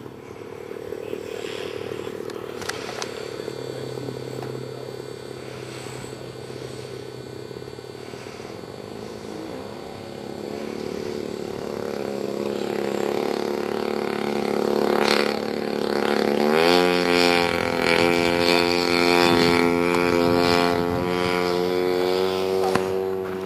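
Gasoline engine of a 1/3-scale Aeronca Champ RC airplane running at a steady low throttle, growing louder. About two-thirds of the way in its pitch rises sharply and then holds high as it is throttled up.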